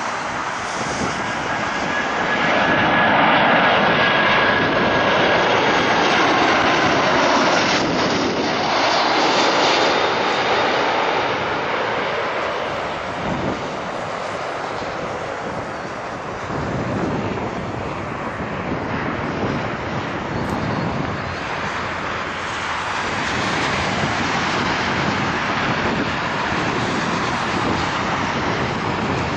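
Airbus A340-300's four CFM56 jet engines as the airliner passes low overhead on final approach: a loud rushing jet noise with a faint high whine, at its loudest a few seconds in. It then eases to a lower, steadier rumble as the airliner lands on the runway some distance off.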